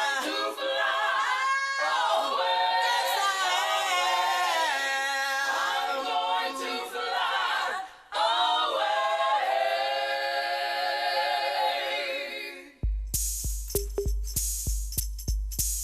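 Gospel choir singing unaccompanied in held, sliding harmonies, with a short break about 8 seconds in. Near the end the voices stop and a steady instrumental beat starts, with deep bass thumps and tambourine-like jingles.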